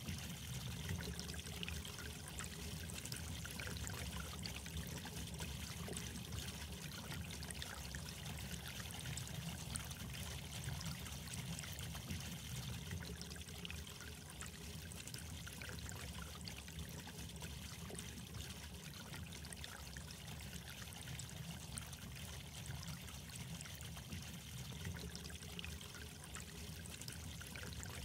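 Steady trickling, burbling water, a continuous murmur dotted with many small splashes.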